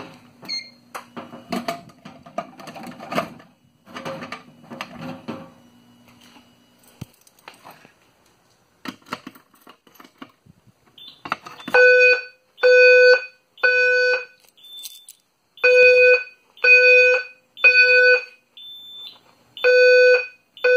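Clicks and handling noise as a Simplex manual pull station is worked. Then, about twelve seconds in, the fire alarm system's speakers start the temporal-three evacuation tone: three loud low tones about a second apart, a pause, and again. Nearly three groups are heard, with a faint high beep in the gaps between groups.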